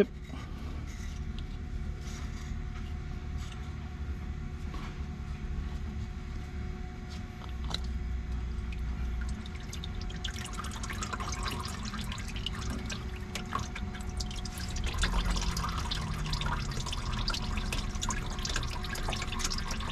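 Engine oil trickling and dripping from a loosened cartridge oil filter housing cap into a drain pan. The dripping grows busier from about halfway through, over a steady low hum.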